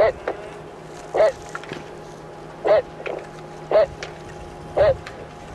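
A voice giving short, sharp calls, five in a row a little over a second apart, over a steady low hum.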